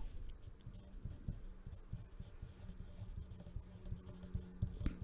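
Pencil writing on paper: light, irregular scratching strokes.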